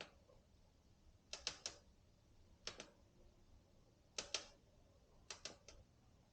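Orbea Rise e-MTB rear suspension creaking as the bike is pushed and rocked by hand: short, sharp creaks in four groups of two or three, about a second and a half apart. The creak comes from the top linkage/frame bearing, bound up by an over-torqued driver-side linkage.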